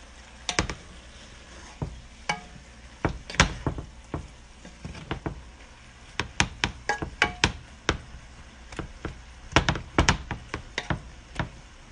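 Wooden spatula knocking and scraping against a pan of stir-frying vegetables: irregular sharp knocks, some with a short metallic ring, coming in quick clusters, over a faint sizzle.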